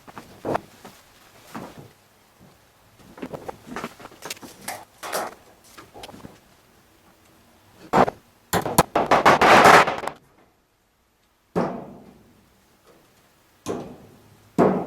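Scattered knocks, clicks and handling clatter from hands-on installation work, with a dense, louder stretch of rattling around nine seconds in and sharp single knocks near the end.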